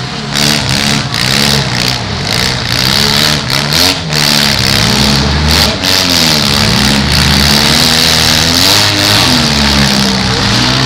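Several demolition derby compact cars' engines revving up and down at the same time, with scattered sharp knocks in the first half.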